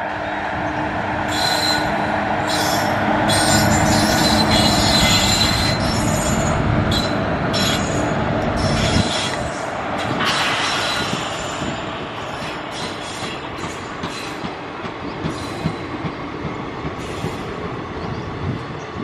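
A departing passenger train's electric locomotive and coaches rolling past: a steady hum and heavy rumble, with wheels squealing in repeated bursts. The noise is loudest in the first half and eases as the coaches move away.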